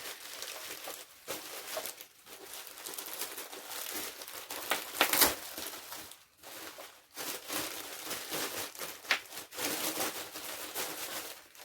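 Plastic packaging crinkling and rustling as the RC truck's remote transmitter is unwrapped, with sharper crackles about five and nine seconds in.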